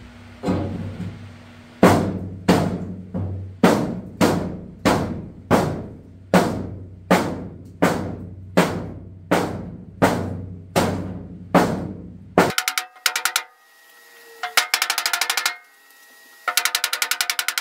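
Background music: a steady drum beat over a held bass note, about one and a half beats a second. About twelve seconds in it breaks off suddenly into rapid snare-drum rolls.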